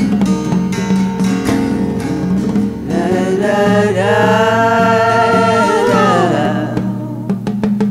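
Strummed acoustic guitar with overdubbed backing vocals from a studio take. About three seconds in, the voices come in on a long held note that slides down and fades near the end, while the guitar strumming carries on.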